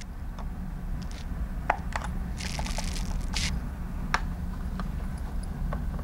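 A flathead screwdriver prying at the plastic release tabs on the bottom of a Honeywell 6160V keypad, making a few sharp plastic clicks with a short scraping stretch about two and a half seconds in.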